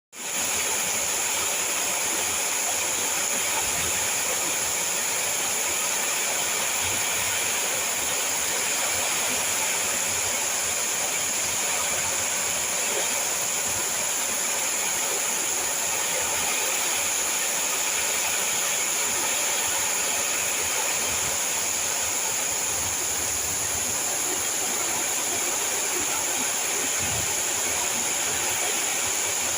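Heavy rain falling steadily, a dense even hiss, with strong wind gusting now and then in low rumbles.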